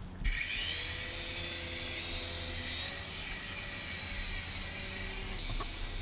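Small electric motor of a cheap infrared-controlled toy RC helicopter spinning up from rest to a high, steady whine. The pitch steps higher about halfway through and eases off a little near the end.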